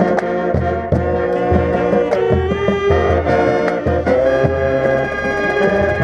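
High school marching band playing: brass and saxophones holding chords over a moving low line, with drum strikes, heard from the mic on a tenor saxophonist's head inside the band.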